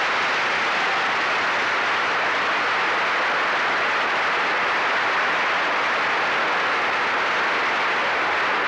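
Large theatre audience applauding, a dense, even roar of clapping with no single claps standing out, which cuts off abruptly at the end.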